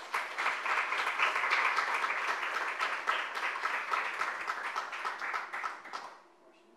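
Audience applauding: many hands clapping together, dying away about six seconds in.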